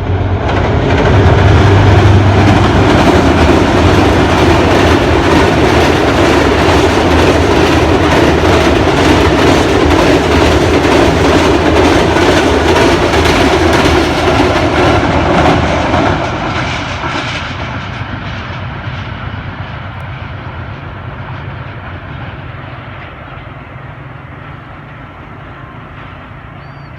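Passenger express train led by a GE U20C diesel-electric locomotive crossing a railway bridge: a loud, dense clatter of wheels on the rails and bridge, with the locomotive's engine hum at the start. After about 16 seconds the sound fades steadily as the train moves away.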